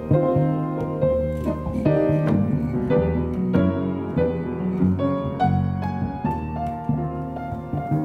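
A Latin-tinged instrumental piece with a jazz feel, keyboard chords moving over a steady bass line.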